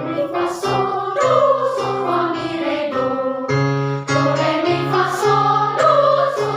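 Children's choir singing together, holding notes that change about every half second over a steady low pulse.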